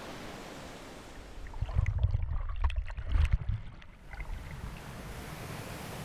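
Ocean surf washing on a beach, a steady hiss, with a louder low rumble for about two seconds in the middle.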